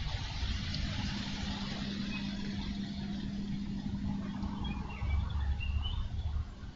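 Outdoor ambience on an eagle nest-cam microphone: a low wind-like rumble with a steady low hum, engine-like, that fades out about two-thirds of the way through, and a few faint high chirps near the end.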